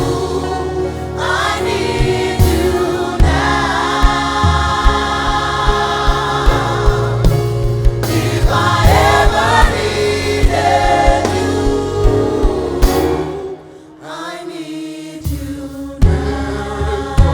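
Gospel choir singing live worship music over a steady beat; the music drops away briefly near the end, then comes back in.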